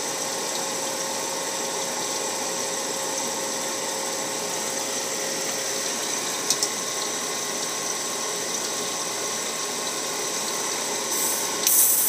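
Refrigerant recovery machine running steadily with a constant hum, with a single sharp click about six and a half seconds in.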